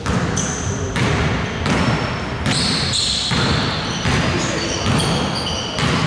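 Basketball bouncing on a hardwood court, dribbled about once a second, with short high squeaks of sneaker soles on the floor.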